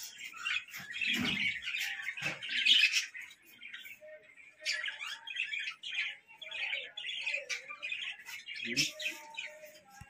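Many caged budgerigars chattering and chirping at once, a continuous busy twittering with no pauses.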